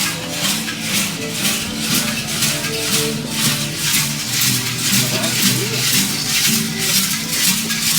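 Traditional dance music with rattles shaken in a steady beat, about three strokes a second, over a simple instrumental melody.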